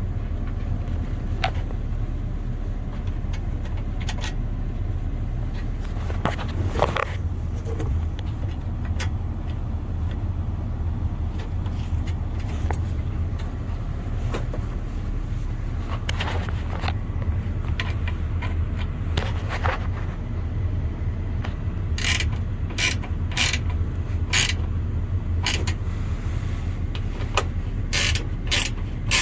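Radiator parts and hand tools being handled: scattered clicks and scrapes over a steady low hum, with a run of sharp clicks about twice a second near the end.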